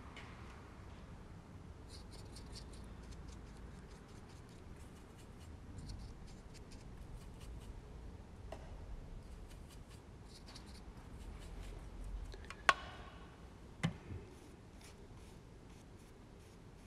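A watercolour brush stroking across watercolour paper: faint scratchy strokes that come in short clusters every second or two. Two sharp taps come about three quarters of the way through.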